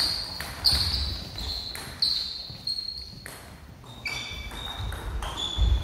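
Table tennis rally: the celluloid/plastic ball striking rubber-covered bats and the table in a run of sharp clicks, roughly one every second, each with a short high ring.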